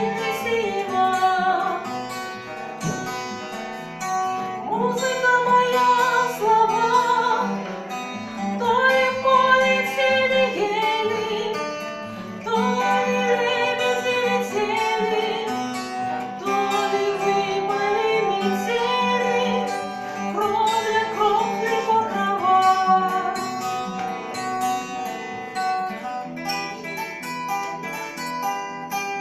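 A song sung to plucked acoustic guitar accompaniment, the voice carrying sustained, gliding notes over the picked chords.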